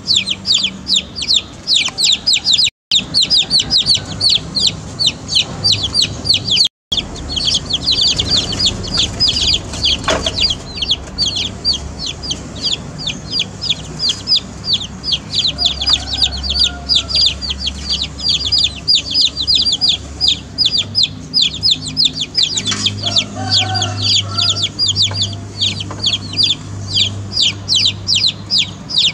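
A group of baby chicks peeping without pause: many short, high, falling cheeps overlapping at several a second. The sound cuts out completely twice, for a moment, about three and seven seconds in.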